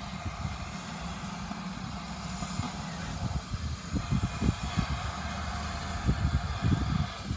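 Wind buffeting the microphone in irregular low thumps, strongest about halfway through and near the end, over a steady hiss of outdoor background noise.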